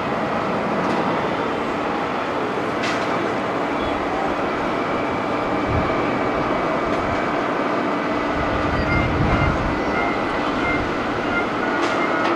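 Boeing 777-200ER's twin jet engines running as the airliner rolls along the runway: a steady rumble with faint, even whining tones over it.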